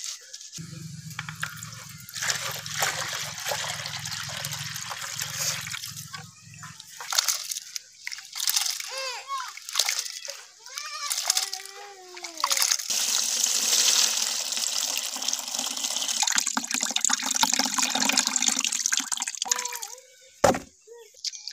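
Soaked split urad dal being washed by hand in a water-filled metal basin: handfuls of wet grains rubbed and let fall back, with sloshing and trickling. From about 13 seconds in there is a steady rush of water filling a tub, and a sharp knock near the end.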